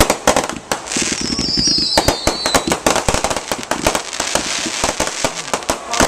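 Fireworks going off in a rapid string of sharp cracks and bangs, with a high whistle falling in pitch about a second in.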